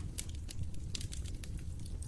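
Wood fire crackling in a fireplace: a steady low rumble of burning with sharp pops and snaps, several a second.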